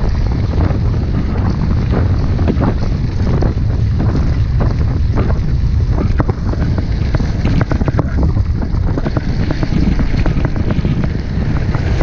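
Wind buffeting the action camera's microphone as a mountain bike rides along a dirt road, with the bike rattling and knocking over the bumpy surface.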